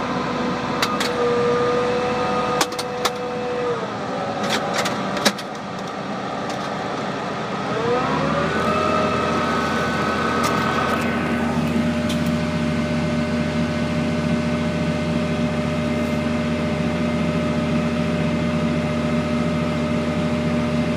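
Farm tractor engine running while pulling a tillage implement: its note drops about four seconds in, climbs back up around eight seconds in and then holds steady. A few sharp clicks sound over the first five or so seconds.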